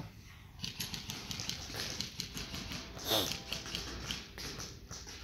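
Airsoft guns firing on the field: an irregular run of sharp clicks and pops. A brief falling cry comes about three seconds in.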